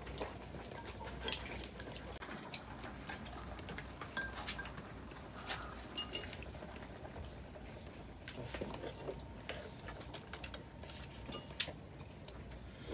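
Chopsticks and spoons clicking and clinking against porcelain bowls and the hot pot as people eat: scattered light clicks at irregular intervals.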